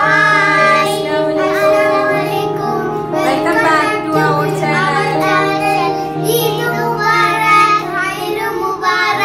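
A song with children singing over long held instrumental notes.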